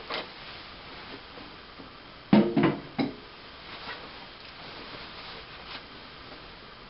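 Quiet room tone, broken about two and a half seconds in by one short burst of sound lasting under a second.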